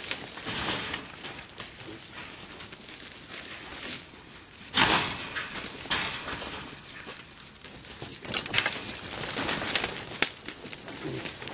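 Wild boars scrambling inside a wire-mesh cage trap, their hooves scuffling on dry dirt, with a loud sudden knock about five seconds in and a smaller one a second later.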